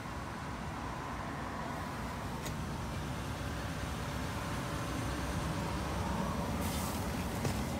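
Steady low rumble of a 2016 GMC Sierra 1500 Denali pickup running at idle, with a faint steady hum over it.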